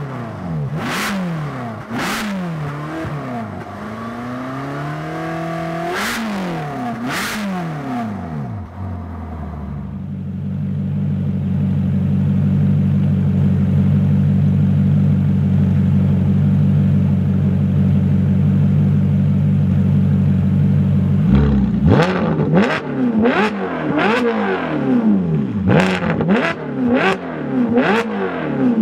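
Ferrari California V8 through an aftermarket Fi exhaust, revving up and down with a few sharp cracks. From about ten seconds in it holds a steady, even drone at constant revs. About 21 seconds in it breaks into quick repeated throttle blips with many pops and crackles.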